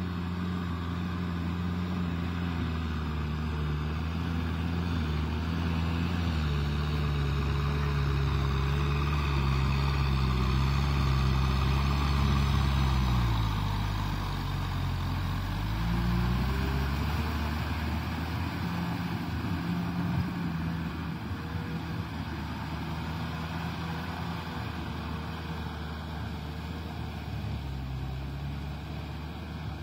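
Kubota M6040SU tractor's four-cylinder diesel engine running under load while its rotavator churns wet mud. The engine gets louder as the tractor comes close, and about halfway through its note dips in pitch and climbs back up.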